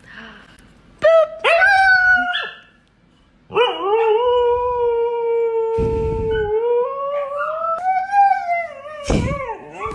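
A husky howling: a short rising howl about a second in, then one long held howl that climbs in pitch near the end.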